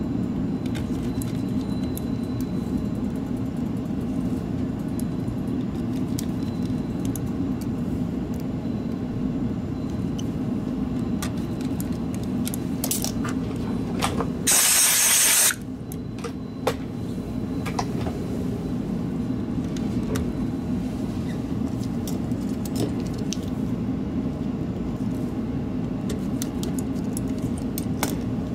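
Small light clicks of a precision screwdriver and tiny screws on a plastic mouse shell during reassembly, over a steady low hum of workshop machinery. About halfway through comes a loud hiss lasting about a second.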